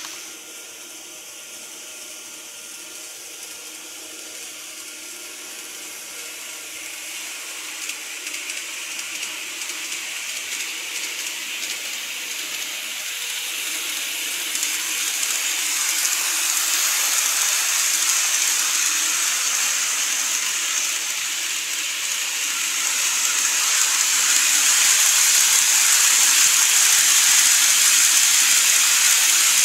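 N-gauge model electric train running on its track: a steady hissing whir of wheels on rail and the small motor. It grows louder as the train comes on, loudest near the end as it passes close by.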